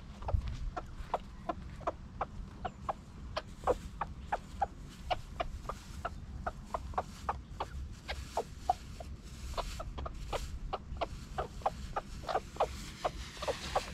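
A flock of chickens clucking while they peck up food from the ground: many short, irregular clucks, several a second.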